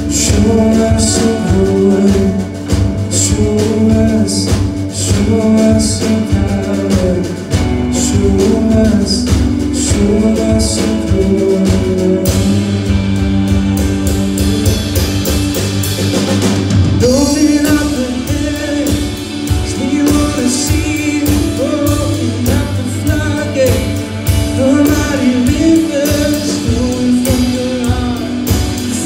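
Live rock trio playing: electric bass, drum kit and electric guitar, with steady drum beats and a change in the drum and cymbal pattern about halfway through.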